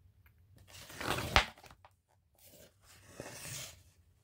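A picture book's paper page being turned: a rustling swish with a sharp snap about a second and a half in, then a softer paper rustle about three seconds in.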